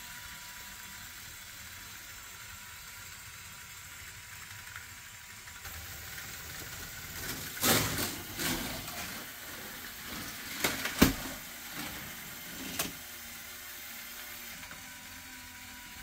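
A LEGO loop roller coaster model running: a faint steady mechanical hum, with a run of plastic clatters and sharp clicks about halfway through, the loudest a single sharp click.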